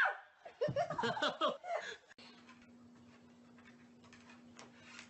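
A person laughing in short bursts for about two seconds, then a sudden cut to a quiet, steady low hum.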